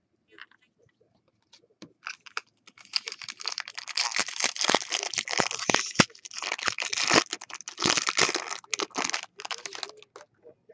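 Foil wrapper of a 2016 Bowman Chrome baseball card pack being torn open and crinkled. It is a dense crackling with many sharp clicks, starting about two seconds in and stopping shortly before the end.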